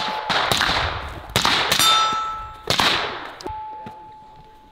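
Gunfire on steel targets: about six sharp shots and hits coming in quick pairs, the struck steel clanging and ringing with long high tones. One ring holds on and fades over the last second or so.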